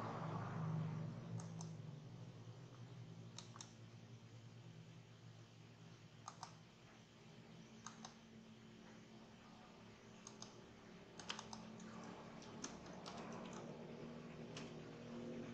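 Computer mouse and keyboard clicks, scattered one by one and sometimes in quick pairs, with a few quick keystrokes near the end, over a faint steady low hum.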